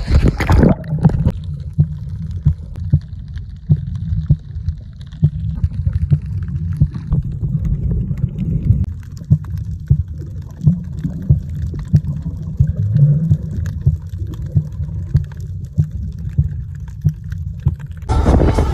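Underwater sound from a submerged phone camera in the sea, after a short splash as it goes in: a muffled low rumble with frequent knocks and bubbly clicks as it moves through the water. Near the end it gives way to a louder, fuller rush of noise.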